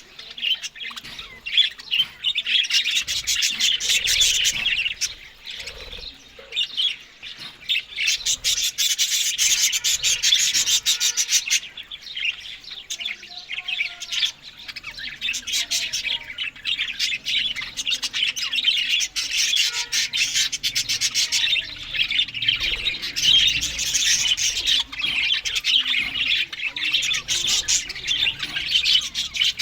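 Budgerigars chattering and warbling continuously, a busy high stream of rapid chirps and clicky notes with brief lulls.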